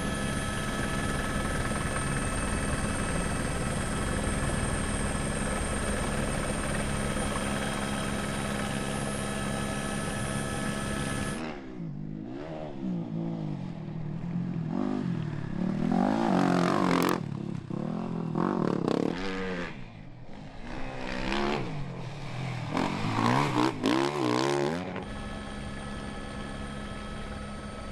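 A steady drone with constant pitch, like a helicopter heard from the cabin, for about eleven seconds. It cuts to a single-cylinder rally motorcycle engine revving up and down hard through the gears in sand, loudest near the end. The steady helicopter drone then returns.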